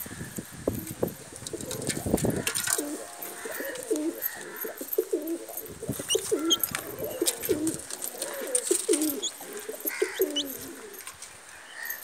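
Domestic pigeons cooing over and over, low warbling coos overlapping one another, mixed with scattered light taps and a few short high chirps.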